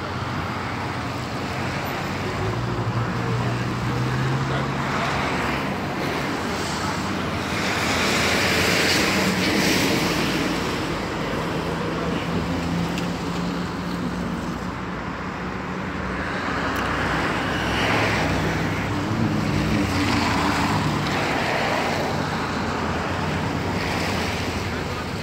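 Road traffic noise mixed with wind on the microphone, swelling and fading as vehicles pass, under a faint low engine hum.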